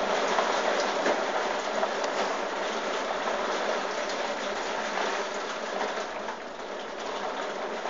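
Heavy rain falling: a steady hiss with scattered small ticks.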